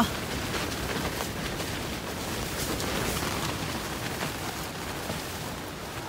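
Storm rain and wind beating on the fabric of a camping tent, heard from inside: a steady hiss with faint scattered taps.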